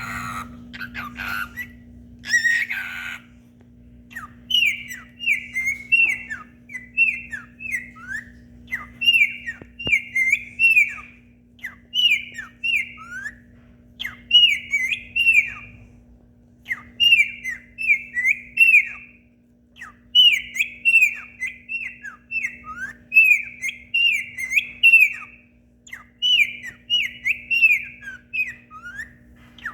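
Cockatiel whistling its song: quick phrases of short whistled notes that sweep up and down, repeated over and over with brief pauses between phrases, after a few harsher calls at the start.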